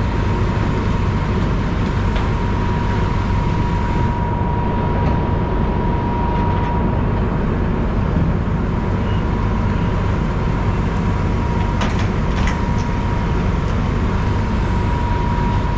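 Fire truck engine running steadily, a low rumble with a steady high whine over it, and a couple of light clicks about twelve seconds in.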